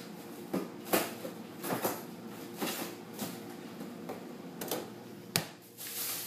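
Grocery packages being handled and set down: a string of light knocks, clicks and rustles, about eight over a few seconds, the sharpest about a second in and near the end, over a faint steady hum.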